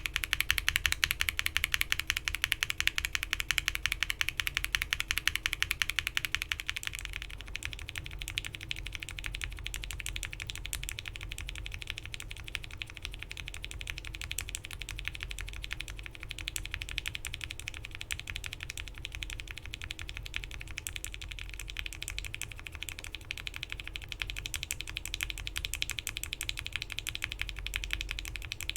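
Steady, fast typing on a mechanical keyboard with modded Gateron Milky Yellow linear switches (FR4 plate, PBT keycaps), a dense stream of keystroke clacks. About seven seconds in the clacks turn duller and less bright as the switches change to a UHMWPE stem, and they brighten again in the last few seconds with a Gateron Ink top added.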